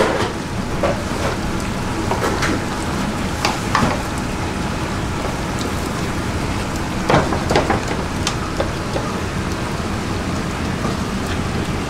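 Steady rushing background noise of a restaurant kitchen at work, with a scattering of short knocks and clinks of utensils against pots, the loudest a few about seven seconds in.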